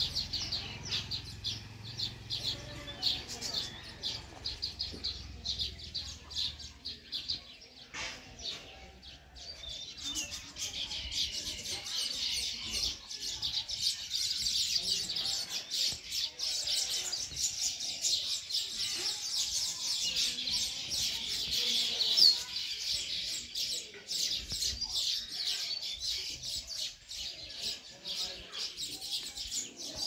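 A colony of baya weavers chattering: many high, short chirps overlapping without a break, growing busier about a third of the way in.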